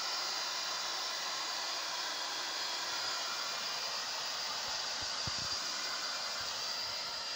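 Hair dryer blowing warm air steadily, an even hiss with a thin high motor whine over it, drying freshly washed chickens. A couple of soft low thumps come about five seconds in.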